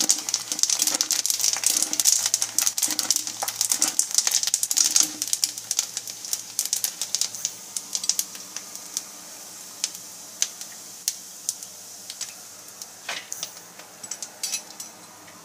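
Macaroni deep-frying in hot oil in a wire-mesh strainer: dense crackling and popping, which thins to scattered pops about halfway through as the strainer is lifted out of the oil.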